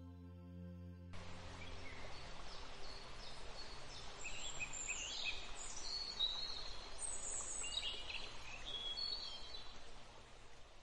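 Birds chirping and singing over a steady outdoor hiss, many short calls that fade out near the end. A sustained ambient music drone plays under it at first and cuts off about a second in.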